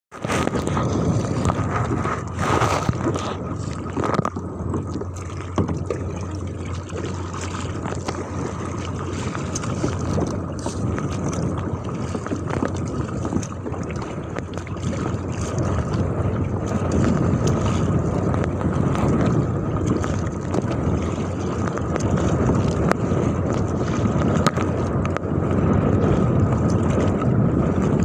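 Strong wind buffeting the microphone over choppy water, with paddle strokes splashing and waves slapping against an inflatable kayak.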